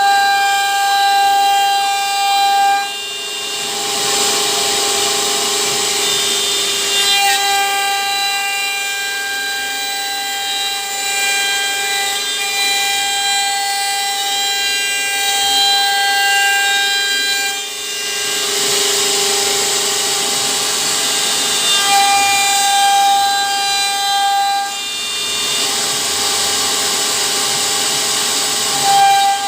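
CNC router spindle whining steadily while a 6 mm cutter mills wood at a 5000 mm/min feed. A rougher cutting noise swells for a few seconds about four seconds in and again around eighteen seconds in.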